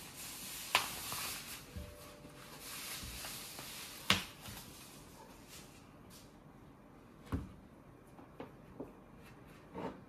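Plastic wrapping rustling as an Akko 3087 V2 keyboard is handled on it, with sharp knocks of the keyboard case against a wooden desk, the loudest about four seconds in. A few lighter knocks and taps follow near the end as the keyboard and its cable are picked up.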